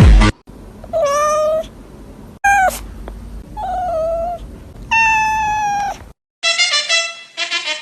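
Domestic cat meowing four times, with short pauses between calls; the second meow is brief and falling, the others are longer and held.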